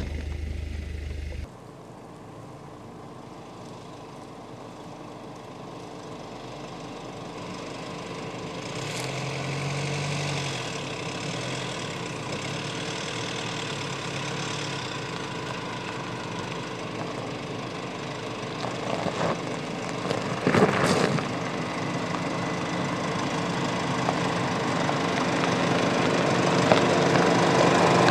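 Mercedes-Benz GLC SUV engine running at low speed as it creeps down a gravel off-road slope, growing steadily louder as it comes closer. A few sharp crunches of gravel under the tyres stand out about twenty seconds in.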